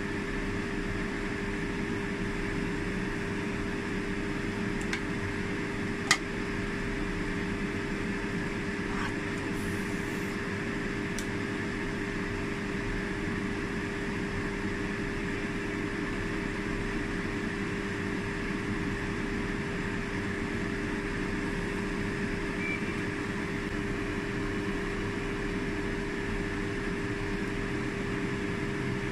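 Steady mechanical hum of a fan motor, with one constant tone over an even noise and no change in level. A single sharp click about six seconds in.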